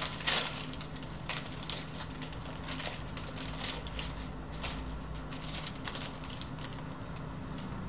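Tissue paper wrapping crinkling and rustling as it is unfolded by hand, loudest in the first half second, then lighter scattered crinkles.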